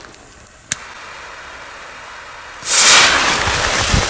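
A click as the fuse of a large firecracker (an XXL Dum Bum ground salute) is lit, then the fuse hissing steadily; near three seconds in it flares into a much louder, close hiss, with low thuds of running footsteps on dry leaves underneath.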